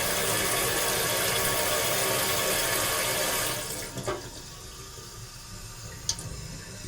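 Sink faucet running in a steady stream, then turned off about halfway through so the flow tapers away, followed by a couple of faint ticks in the sink.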